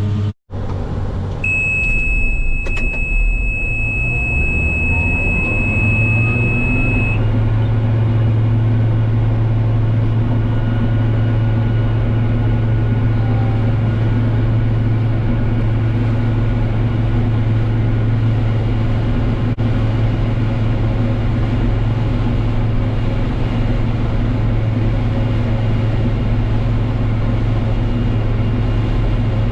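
Case IH 1640 combine running with a steady heavy drone. About a second and a half in, a continuous high warning beep sounds for about five seconds. Meanwhile the machine's pitch rises and settles into a steady higher hum.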